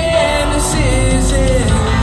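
Pop-rock song playing over a PA system: a sung melody bending up and down over a steady bass.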